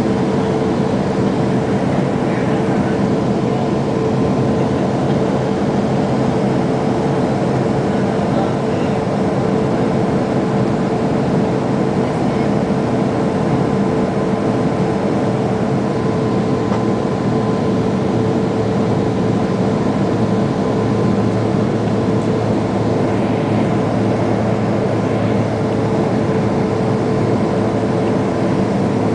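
Steady jet cabin noise inside a Boeing 767 descending on approach: the even rush of airflow and turbofan engines, with a few held humming tones over it.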